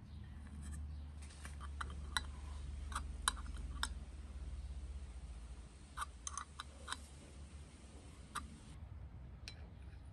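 Small brass valve parts of a PT-1 kerosene stove clicking and tapping against each other as they are handled and fitted together: sharp metallic clicks in two clusters, one about two to four seconds in and another about six seconds in, with a few single clicks later, over a low steady hum.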